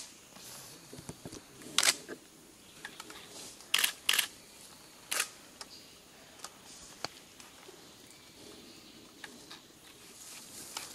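About half a dozen short, sharp clicks, scattered a second or two apart (two of them close together about four seconds in), over a quiet background.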